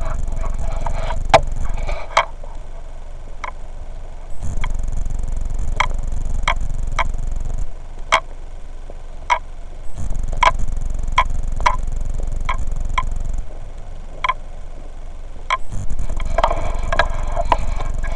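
Footsteps crunching and snapping through dry leaves and twigs, about one to two sharp cracks a second. Under them, a low rushing noise cuts in and out every few seconds.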